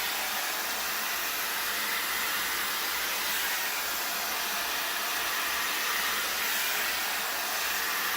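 Wind Magic Styler hair dryer brush with its flat brush attachment blowing a steady rush of air while brushing the hair straight.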